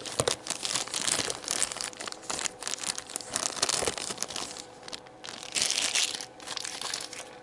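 Plastic kit packaging crinkling and rustling as the parts are handled and taken out, with short clicks throughout and a louder stretch of rustling about six seconds in.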